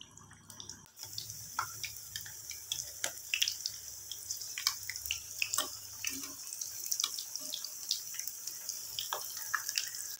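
Chana dal patties shallow-frying in hot oil in a pan: a steady sizzle with frequent small crackling pops, starting about a second in.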